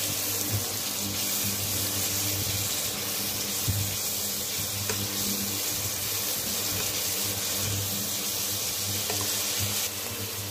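Potatoes, tomatoes and green chillies frying in oil in a kadai: a steady sizzle with a few light clicks of the spatula as it stirs, over a low steady hum.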